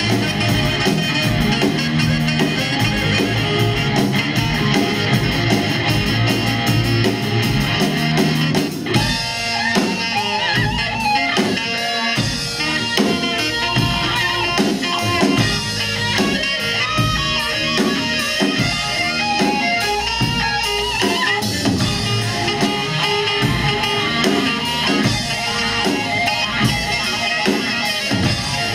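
A live rock band playing an instrumental passage with electric guitar and drum kit. The arrangement shifts about nine seconds in into a choppier, more rhythmic section.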